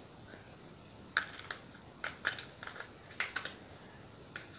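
Batteries being pressed into the plastic battery compartment of a toy RC car remote: several light, sharp clicks and taps, beginning about a second in.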